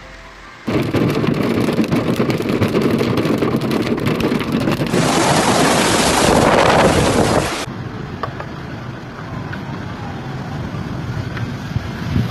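Hail pelting down, starting suddenly about a second in as a dense clatter of countless small impacts. It is loudest from about the middle for a couple of seconds, where hailstones drum against a window pane close by. Near the end it eases to a steadier rush of heavy rain.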